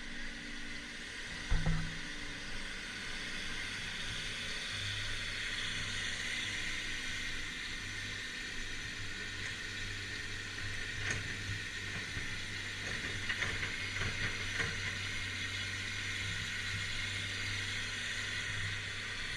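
Old Komatsu excavator's diesel engine running with a steady low hum and hiss. There is one sharp thump about a second and a half in, and a few metallic knocks later on.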